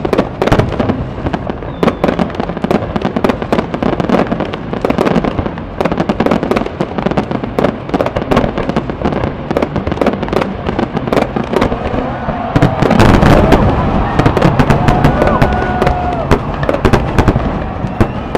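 Fireworks display: a rapid, continuous run of shell bursts and crackling bangs, growing louder and denser about two-thirds of the way through, with gliding whistles over the bangs.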